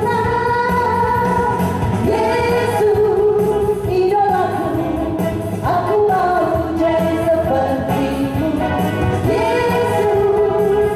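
A children's praise song sung by voices over an upbeat instrumental backing, the sung melody running on without a break.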